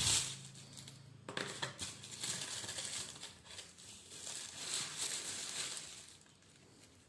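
Wrapping tissue paper rustling and crinkling in a cardboard shoebox as it is pushed aside and the shoes are handled, in several bouts that die down about six seconds in.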